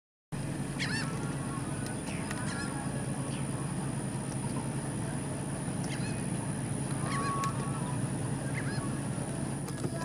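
Birds calling: a dozen or so short, sharp notes that sweep up and down, plus one short held note about seven seconds in. Under them run a steady low hum and a thin, high, steady whine.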